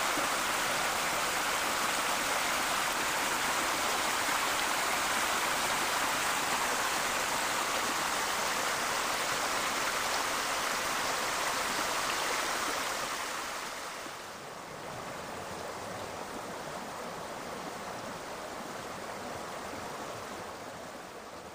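Stream cascading over rocks: a steady rush of falling water, which drops to a softer level about thirteen to fourteen seconds in.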